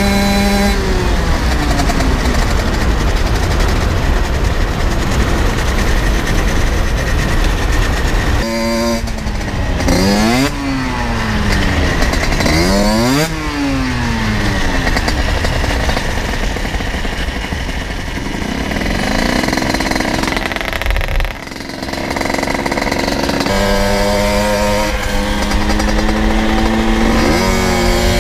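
Generic Trigger SM 50's 50cc two-stroke engine through an aftermarket exhaust, ridden hard and running loud at high revs with wind rushing over the microphone. About a third of the way in the revs drop and climb again several times, and there is a short dip in revs after the middle.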